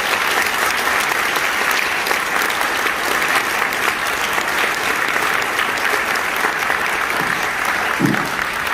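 Audience applauding steadily after an orchestral piece ends.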